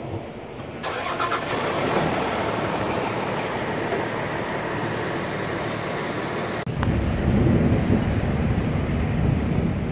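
A steady rushing noise starts about a second in and breaks off abruptly two-thirds of the way through. A deep, low rumble of thunder follows.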